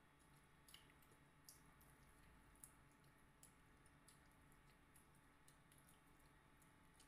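Near silence with faint, irregular wet clicks and smacks of eating by hand: chewing and fingers picking at fish and rice, over a low steady room hum.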